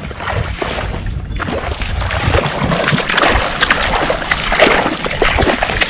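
Wading through shallow water and soft mangrove mud: irregular splashing and sloshing footsteps, one after another.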